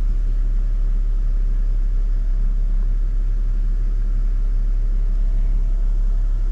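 BMW E46's engine running steadily with a low, even rumble, just after its VANOS seals were rebuilt.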